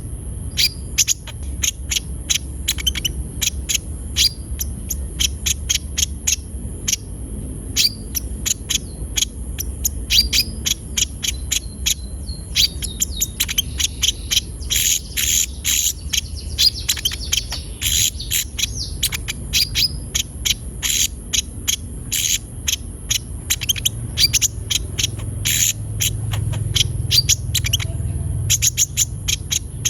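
Konin sunbird singing vigorously: a fast, unbroken run of short, sharp, high chirps, with a steady high hiss behind it.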